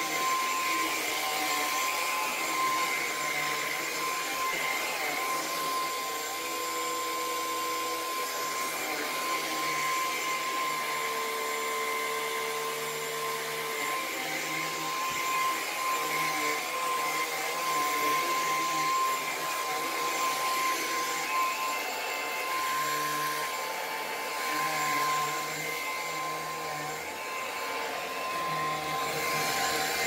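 Lupe Pure cordless stick vacuum running steadily as it is pushed over carpet, a rush of air under a steady high whine.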